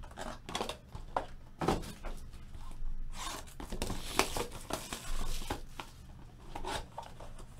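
Cardboard trading-card boxes and packaging being handled and torn open by hand: a run of short rustles, scrapes and taps, busiest around the middle.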